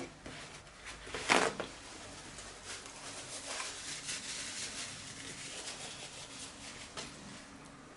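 A sheet of kitchen paper torn off the roll with one short, sharp rip about a second in, then soft rustling of the paper as greasy fingers are wiped on it.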